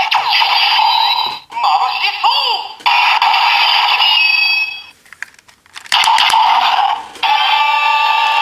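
Electronic sound effects from a Ryusouken toy sword's speaker: a recorded voice call-out and a jingle in short bursts, broken by a brief pause with a few clicks past the middle.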